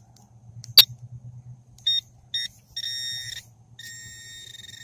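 Handheld metal-detecting pinpointer probe beeping as it closes in on a buried metal target in the soil: a sharp click about a second in, then two short beeps, a longer beep, and from about four seconds a steady continuous tone, the sign that the probe is right on the target.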